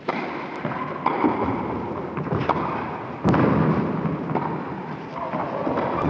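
Wooden tennis racquets striking the ball in a rally, sharp hits roughly a second apart over the steady crackling hiss of an old film soundtrack. The background noise steps up louder a little over three seconds in.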